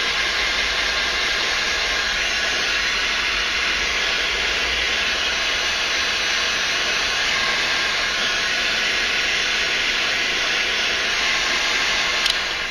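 Electric heat gun running with a steady fan hiss, warming the hose fittings on a hot tub circulation pump to soften them for removal. A click near the end, after which the noise starts to die away.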